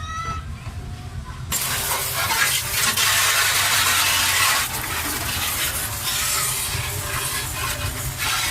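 A loud, steady spraying hiss starts suddenly about a second and a half in and keeps going, over a low steady hum.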